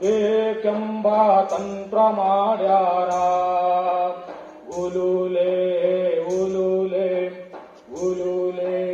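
A voice chanting in long held, slowly bending notes over a steady drone, with a soft percussive beat about every one and a half seconds.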